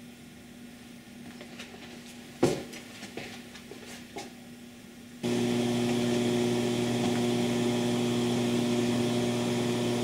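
A few sharp clicks, then about five seconds in the amplified output comes up abruptly: a steady mains hum with several overtones over a hiss (rush noise). This is the residual noise of a TPS10 phonostage at 76 dB gain on its plain TG1 power supply with no SP capacitor packs, and the hum is the power-supply noise the packs are meant to remove.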